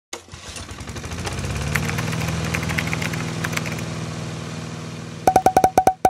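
Intro sound effect: a vehicle engine starts and runs steadily for about five seconds. A rapid run of about seven short, sharp pings follows in the last second.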